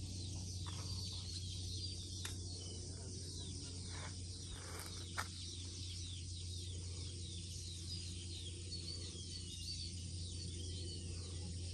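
Birds chirping in short, repeated calls over a steady low hum, with one sharp click about five seconds in.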